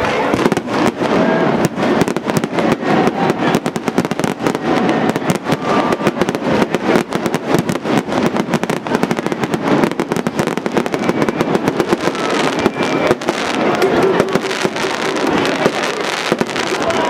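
Aerial fireworks show: shells bursting overhead in rapid, continuous succession, several sharp bangs and crackles a second with no pause.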